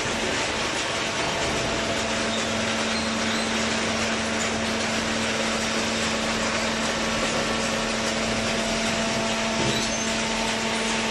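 Hydraulic baler machine running steadily: an even mechanical din with a constant hum throughout.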